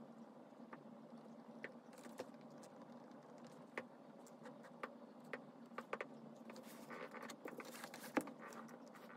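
Faint pen writing on paper in a planner: light scratches and small scattered taps, over a faint steady hum. One louder tap near the end as the planner is moved.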